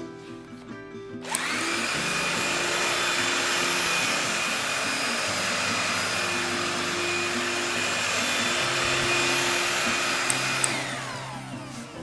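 Vacuum cleaner switched on about a second in and running steadily with a high whine, then switched off near the end, its motor winding down with a falling whine.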